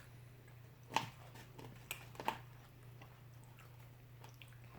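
Quiet eating sounds of a person chewing close to the microphone, with a few sharp mouth clicks about one and two seconds in, over a steady low electrical hum.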